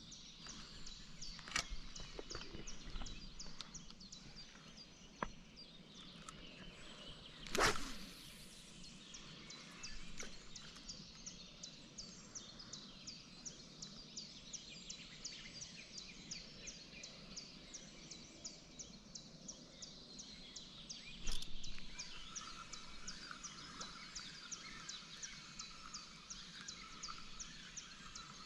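Pond-side outdoor ambience: a rapid, regular high chirping, two or three chirps a second, runs throughout. About eight seconds in comes a louder brief rushing noise, and a short sharp noise sounds around twenty-one seconds.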